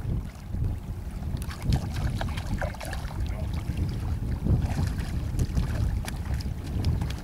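Wind buffeting the microphone, a gusty low rumble, with scattered faint clicks and scrapes over it.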